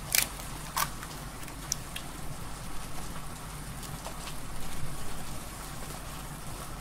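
A hen's egg being tapped and cracked on the rim of a ceramic bowl and dropped in: a few sharp clicks in the first two seconds, over a low steady hum.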